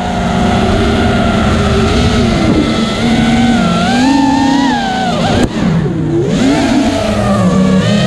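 Onboard sound of a 5-inch FPV racing quadcopter: ZMX Fusion 2206 2300KV brushless motors spinning 5x4x3 tri-blade props, a buzzing whine whose pitch rises and falls with throttle. A little past halfway there is a click and the pitch drops sharply, then climbs again.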